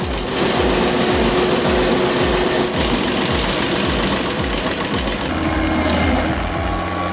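Machinery running with a regular low pulse about two and a half times a second. About five seconds in it gives way to a steady engine hum.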